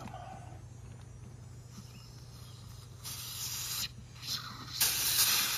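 Refrigerant (freon) hissing out in short spurts as a gauge hose is unscrewed from the brass service port of a ductless mini-split heat pump's outdoor unit: a spurt about three seconds in, a brief puff, then a louder spurt near the end. It is the small expected release while the hose comes off, not a leak.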